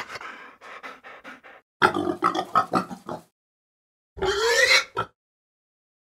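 Pigs grunting in a quick series, then one louder squealing call with a rising pitch.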